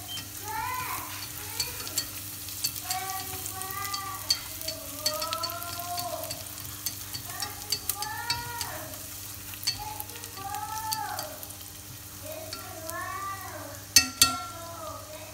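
Minced garlic and shallot frying in fat in a stainless steel pot, crackling and sizzling as they are stirred with wooden chopsticks, with two sharp knocks near the end. Behind it, a pitched sound that rises and falls repeats about once a second.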